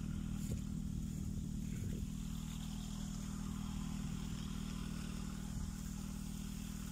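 An engine or motor running at a constant speed, a steady low hum that does not change.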